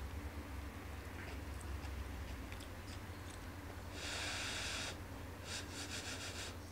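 A person eating a bite of stir-fried vegetables and fried tofu from chopsticks: faint clicks and chewing, then two airy slurps as the bite is drawn in, about four seconds and five and a half seconds in, the second made of quick pulses.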